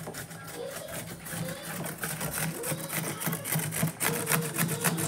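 A cucumber being grated on a stainless steel box grater: quick, repeated scraping strokes against the metal blades.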